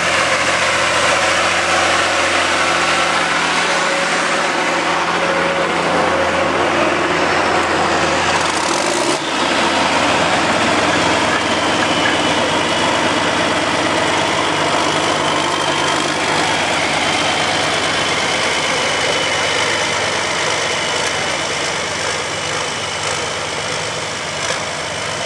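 Farm tractor engine running steadily and loudly, with a thin steady high whine joining about halfway through.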